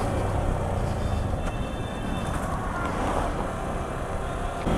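Steady road and traffic noise during a ride on a Yamaha R15 V4 motorcycle, with faint thin high tones briefly about a second and a half in.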